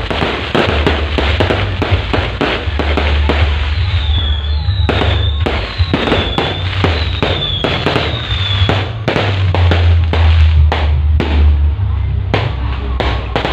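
Firecrackers (petasan) going off in rapid, irregular cracks, over loud heavy bass music from a truck-mounted horeg sound system.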